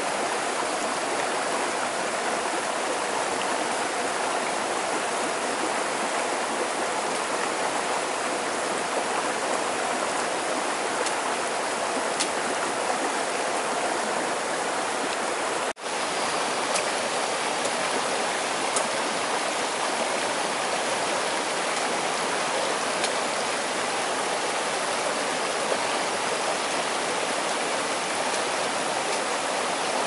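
Flowing water rushing steadily, with a momentary break about sixteen seconds in.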